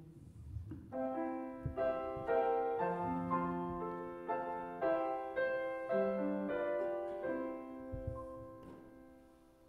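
Piano playing a short, slow passage of chords that starts about a second in and fades away near the end.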